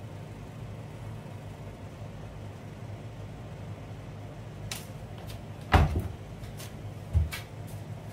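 Handling noise on a wooden floor: a few sharp clicks and taps, then two dull thumps about a second and a half apart as the worker gets up off his knees and steps, over a low steady hum.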